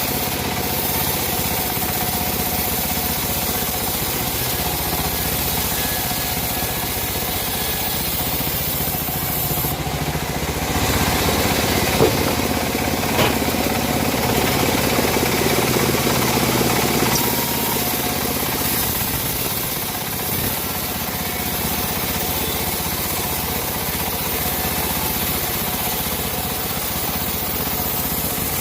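Engine-driven homemade band sawmill running steadily. The sound swells for several seconds in the middle, with a sharp click about twelve seconds in.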